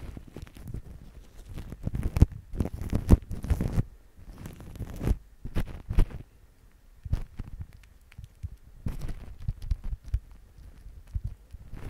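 Fingertips squishing a white foam and crinkling the plastic cling film wrapped over a microphone, right at the capsule: irregular wet crackles and soft thumps, with short pauses about four and six and a half seconds in.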